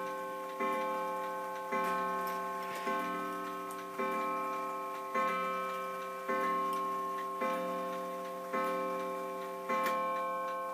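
1929 Waterbury mantel clock striking ten o'clock on its gong: slow, even strokes a little over a second apart, each ringing out and fading into the next.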